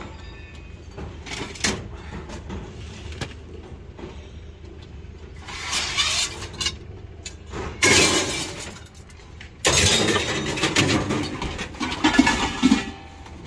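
Scrap metal clattering and scraping as pieces are dragged out of a van's load and dropped, with several loud crashes in the second half.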